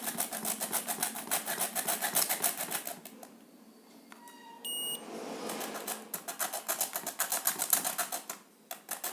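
Rapid run of clicks and scratches, about eight a second, with a short high electronic beep from a multimeter in continuity mode a little before halfway, then the clicking starts again.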